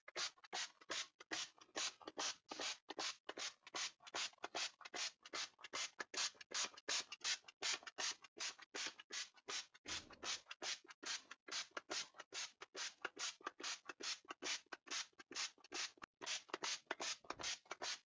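Finger-pump spray bottle squirted over and over in quick succession, a short hiss of mist about three times a second. A soft low bump comes about ten seconds in.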